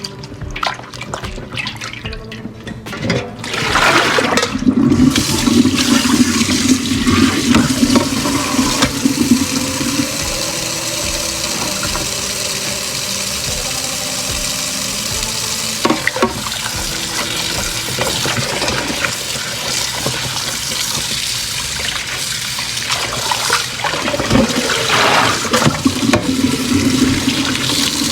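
Tap water running into a sink while meat is rinsed under it. The flow starts about three and a half seconds in and runs steadily, with heavier splashing near the start and again near the end.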